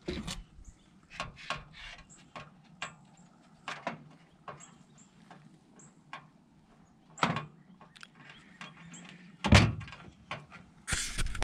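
Scattered knocks and clicks from a weathered deer skull and antlers being handled and bumped on a pickup's bed and metal toolbox. A few louder thunks come past the middle and near the end.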